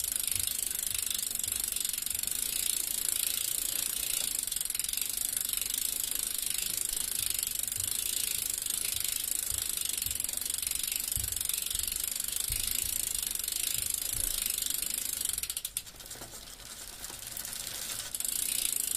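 Bicycle freewheel ticking as the wheel coasts: a rapid, steady ratcheting of the hub's pawls. It drops away for a couple of seconds near the end, then picks up again.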